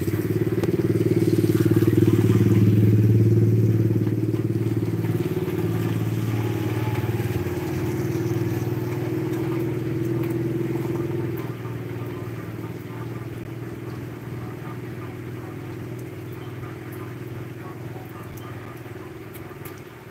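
A motor vehicle engine running with a steady low drone, loudest about two to three seconds in and then slowly fading.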